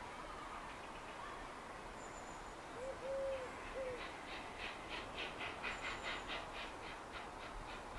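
Birds calling: a three-note hooting call, its middle note the longest, about three seconds in, then a rapid run of short calls, about three or four a second, that fades away near the end.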